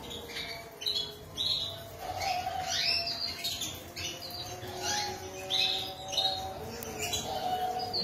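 A flock of canaries chirping and calling, with many short, overlapping high chirps and quick falling notes.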